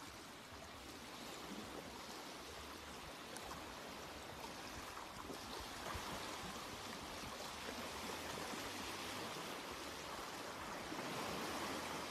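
Steady rush of flowing water with no distinct events, slowly growing a little louder.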